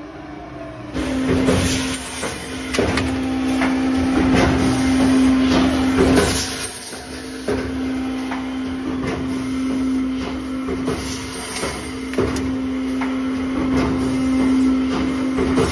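CNC tube return-bending machine running: a steady motor hum with many irregular clicks, knocks and clatter from its mechanism, starting about a second in.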